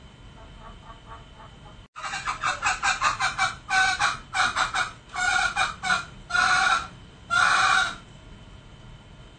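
Male green junglefowl calling: a few faint calls, then about two seconds in a quick run of short clucking notes that breaks into several longer, louder calls, stopping near the end.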